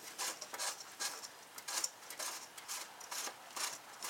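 Plastic oil filter housing cap on a 2.4L Ecotec engine being unscrewed by hand, giving short rasping scrapes, about two or three a second, as the threads and fingers turn it.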